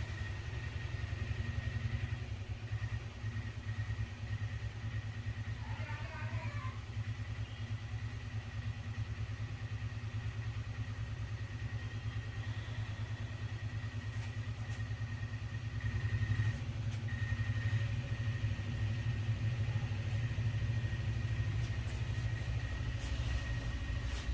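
A motor running steadily: a low, fast-pulsing hum with a faint high whine, growing a little louder about two-thirds of the way through.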